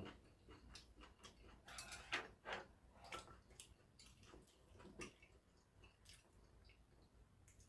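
Very faint eating sounds: scattered soft clicks of chewing and light taps of a metal spoon and chopsticks against ceramic bowls, a few slightly louder about two seconds in and again near five seconds.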